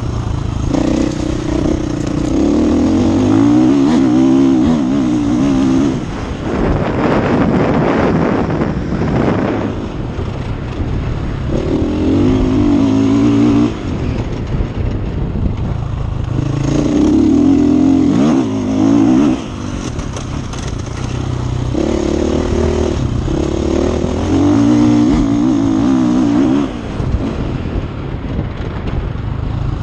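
Enduro motorcycle's single-cylinder engine ridden hard, its pitch climbing and falling as the throttle opens and shuts through the gears, with a brief drop in loudness every few seconds when the throttle closes. Heard close up from an onboard camera on the moving bike.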